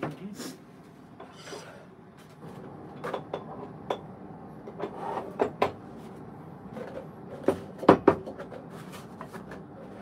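Tabletop handling noise: a cloth rubbing across a scale, paper filters and glassware set down, and scattered light knocks and clicks, the sharpest two close together about seven and a half seconds in.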